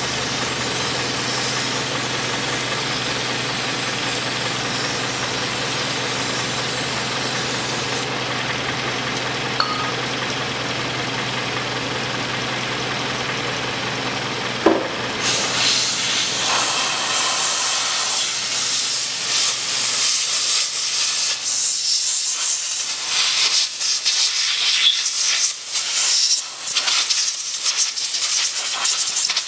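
Aerosol cleaner hissing as it is sprayed onto the automatic transmission pan to wash off fluid drips, with the car's engine idling underneath. About halfway through the spraying turns louder and comes in short, uneven bursts.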